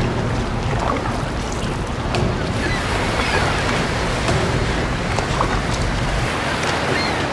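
Sea surf washing steadily with wind buffeting the microphone: a low rumble under a broad hiss, with a few faint clicks.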